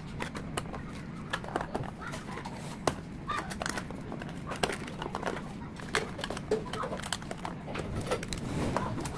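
Clear plastic lids being pressed and snapped onto plastic dessert cups: irregular sharp clicks and plastic crackles, over a steady low hum.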